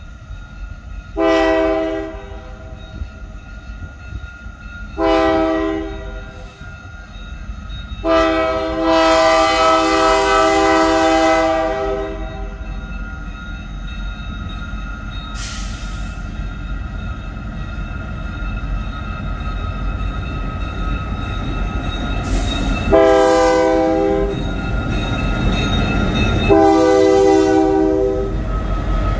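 Freight locomotive air horn sounding a series of blasts for a grade crossing as the train approaches: two blasts of about a second, then one long blast of about four seconds, and two more blasts near the end. The low rumble of the approaching train grows louder under it.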